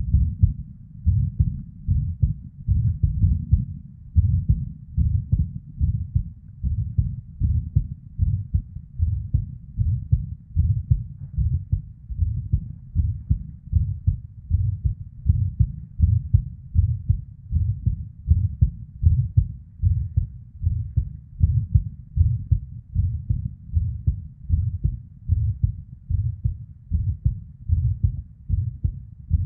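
A woman's heartbeat heard through a chest recording: repeated low thumps of the heart sounds with a whooshing murmur of blood flow. The rhythm is irregular, with premature ectopic beats (PVCs).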